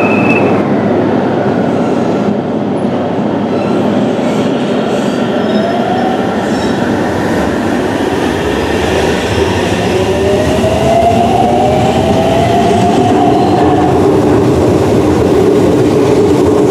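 Aichi Loop Railway 2000 series electric commuter train moving along a station platform, with loud running noise and a motor whine that rises in pitch through the middle, a sign of the train gathering speed.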